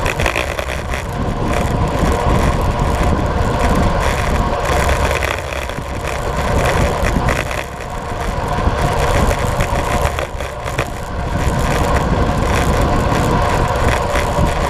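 Steady rush of wind on the microphone and tyre hum on asphalt from road bikes riding at about 50 km/h, swelling and easing a little at times.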